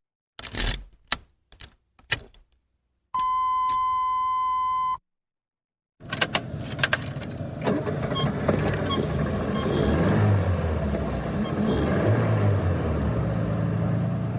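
Car key jingling and clicking into the ignition, then a steady electronic warning beep for about two seconds. About six seconds in, the car engine cranks, starts and settles into a steady idle.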